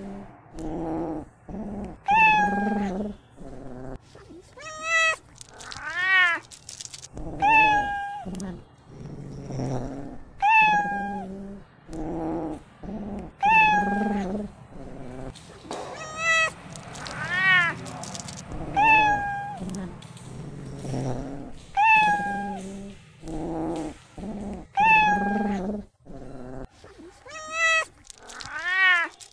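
Cat meowing over and over, a short high call about every two to three seconds, with lower rumbling sounds between the calls and three longer calls that rise and fall in pitch.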